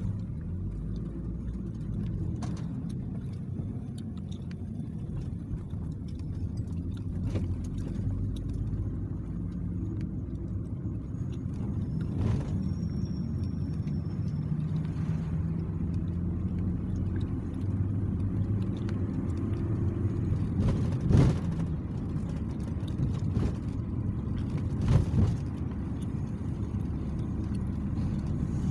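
Taxi heard from inside its cabin while moving: a steady low rumble of engine and road noise, the engine hum slowly shifting in pitch. Two sharp knocks stand out in the last third.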